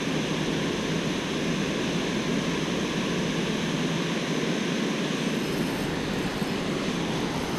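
Water pouring over a low mill dam's spillway: a steady, even rush of falling water.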